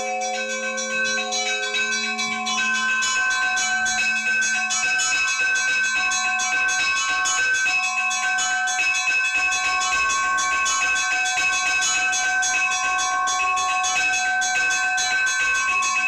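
Church bells being rung together in a peal: quick repeated strikes of smaller bells over the long ringing tones of larger ones. The mix of bell tones shifts about two and a half seconds in.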